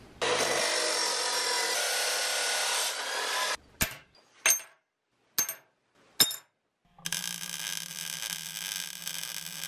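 A power tool cuts steel stock for about three seconds, then come four short sharp clinks. From about seven seconds a MIG welder lays a weld on steel mounting pieces: a steady arc hiss over a low electrical hum.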